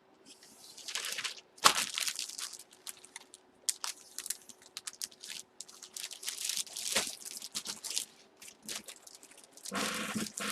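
Plastic card sleeves and a bag crinkling and rustling as a trading card is slipped into a new bag, in irregular bursts with a sharp click about two seconds in.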